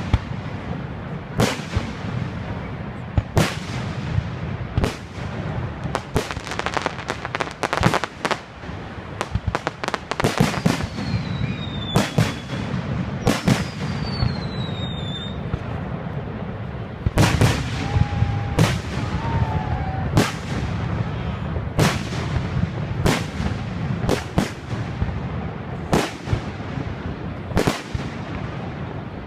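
Fireworks display: aerial shells bursting with sharp booms about once a second, with denser crackling volleys at times and a couple of falling whistles from whistling shells, over a steady low rumble.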